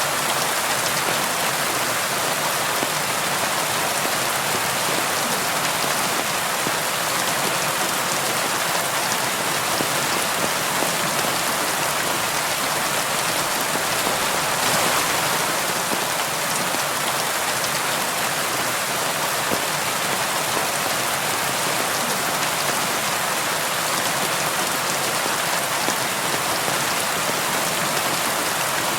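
Steady rain falling on window glass, an even hiss of many drops with a slight swell about halfway through.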